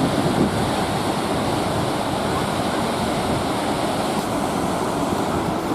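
Whitewater of a rapid on the Salmon River, rushing in a loud, steady torrent.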